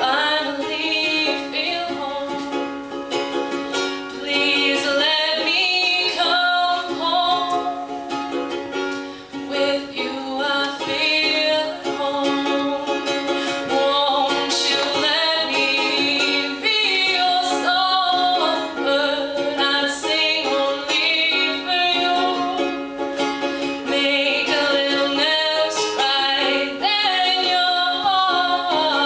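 Ukulele playing with a voice singing a slow melody over it: a live solo song with sung vocals.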